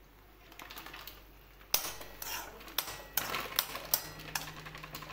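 A spoon stirring simmering noodles in a metal kadhai, knocking and scraping against the pan in quick, uneven clicks. It starts with a sharp knock a little under two seconds in.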